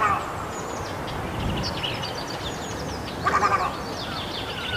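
Birds calling: many small birds chirping and twittering high up, with a louder harsh, rasping call at the start and another about three seconds in.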